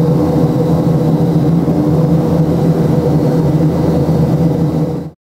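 Beechcraft King Air twin turboprop engines and propellers running steadily on the ground, loud with several held tones. The sound cuts off abruptly near the end.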